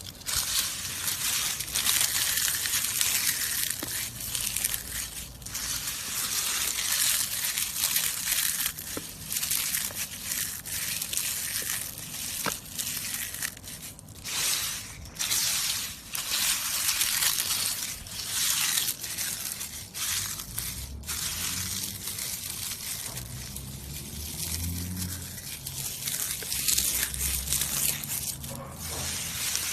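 Heavy rain pouring: a dense hiss that dips briefly now and then. A low rumble comes in during the last third.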